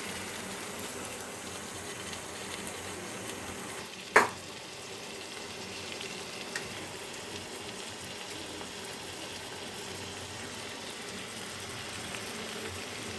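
Sliced tomatoes with onion and spices frying in hot oil in a pan, a steady sizzle as they are sautéed and stirred. One sharp knock about four seconds in.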